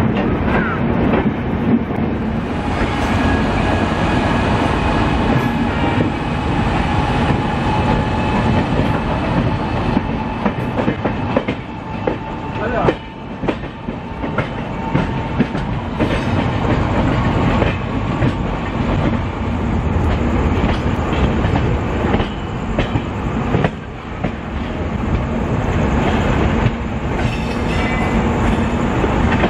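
Wheels of the Shatabdi Express's LHB passenger coaches running over rail joints and station pointwork as the train pulls out of the station, a steady loud rumble with clickety-clack.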